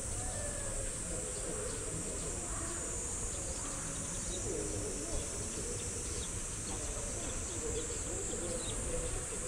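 Steady high-pitched drone of insects in summer vegetation, over a constant low rumble.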